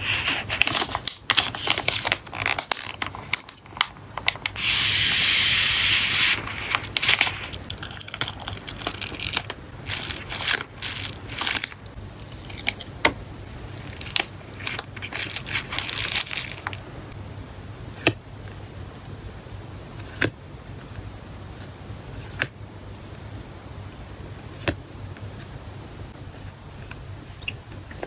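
Plastic and padded-mailer packaging handled by hands: crinkling, rustling and scraping as a photocard in its sleeve goes into a plastic zip bag and the bag into a bubble mailer. About five seconds in there is a loud, steady scrape lasting over a second, and the second half is quieter, with occasional single taps.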